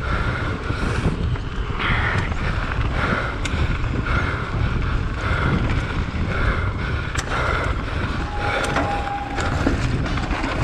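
Wind buffeting the microphone over the rumble of knobby tyres on a dry dirt trail as a downhill mountain bike descends at speed, with a few sharp clicks and rattles from the bike late on.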